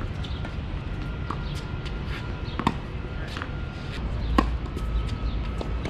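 Tennis rally: a tennis racket strikes the ball hard a little over four seconds in, the loudest sound, after another ball impact about two and a half seconds in. Light scuffing footsteps on the hard court tick in between.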